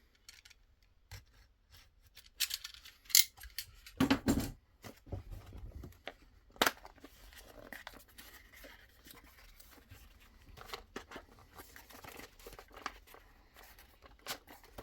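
A box's packaging being cut and torn open by hand, with scattered scrapes and rustles and a few louder knocks and a dull thud about four seconds in as the box is handled.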